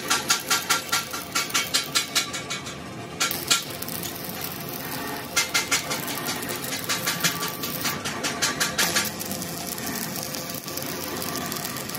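Factory machinery making a rapid, even clatter of about four strikes a second, in two runs a few seconds long, over a steady machine hum.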